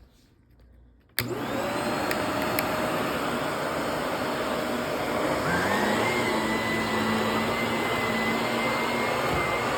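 Vacuum cleaner switched on about a second in, then running steadily over the carpet; its motor pitch steps up about halfway through.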